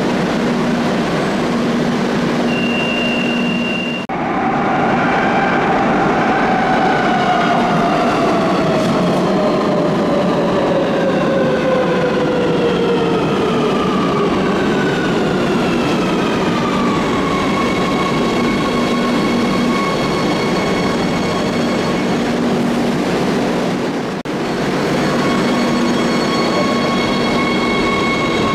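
Madrid Metro Line 3 train braking into the station: its electric traction motors whine in several tones that fall together over about twelve seconds, then hold steady as the train stands at the platform. Before that, a steady rumble with a short high beep.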